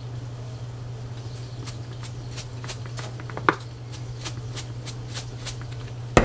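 A plastic squeeze bottle of Tajín sauce squeezed upside down over a glass rim, giving a run of light clicks and spurts about three a second, with one sharper click about halfway through. A steady low hum underlies it.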